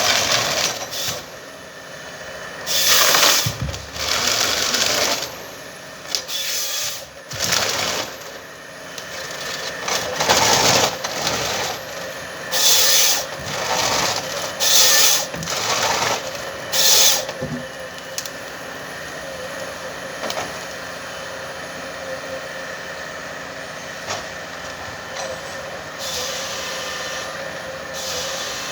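Komatsu 931XC forestry harvester running with a steady drone, broken by about eight short, loud bursts of hissing noise in the first two-thirds. After that the engine runs on evenly.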